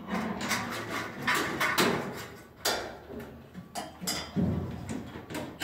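Irregular light knocks, clicks and scraping of light-gauge steel studs and track being handled in the framing.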